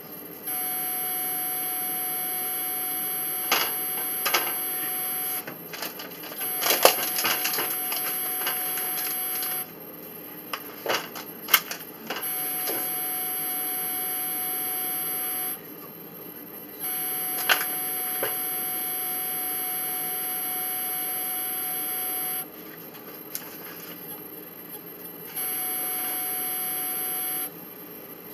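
A steady electronic whine that switches on and off every few seconds, with scattered light clicks and taps of hands working cookie dough, spoon and dough tub.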